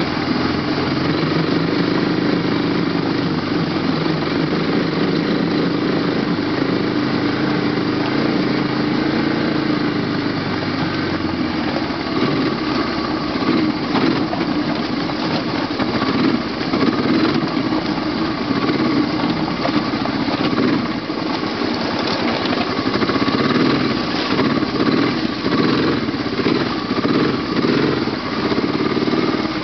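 ATV (quad) engine running under load while climbing a rough, rocky mountain road. The engine note is steady for about the first ten seconds, then turns uneven and choppy as the throttle varies over the rocks.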